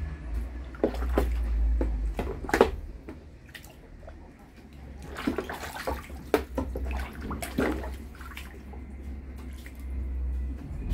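Geese splashing and dabbling in a tub of water: irregular splashes and drips, over a low steady rumble.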